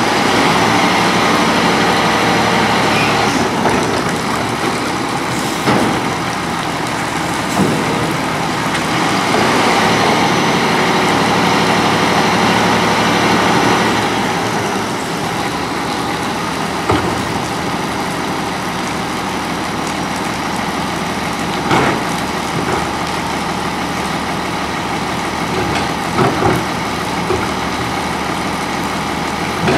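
Autocar ACX front-loader garbage truck with a New Way Mammoth body running while its forks and a portable tipper tip a commercial roll cart into the hopper; the engine is louder for about the first half, then settles to a steadier idle as the cart comes back down. Short metal clunks from the cart and tipper come several times.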